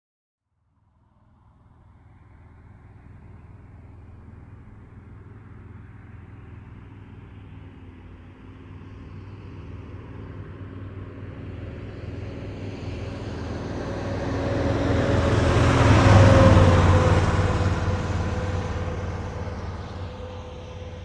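A road vehicle approaching and passing by: its noise swells slowly to a peak about sixteen seconds in, with a faint steady tone that drops slightly in pitch as it passes, then fades away.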